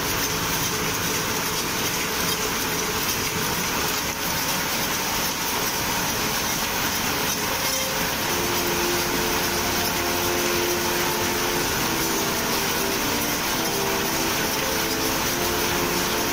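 Fish-processing line machinery running: a steady mechanical noise, with a few steady humming tones joining about eight seconds in.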